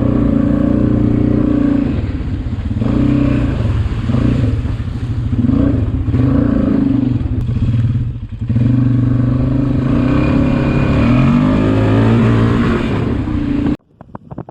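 Honda Rincon 680 ATV engine with an HMF swamp exhaust, running and revving up and down repeatedly, briefly dropping off about eight seconds in. The sound cuts off suddenly near the end.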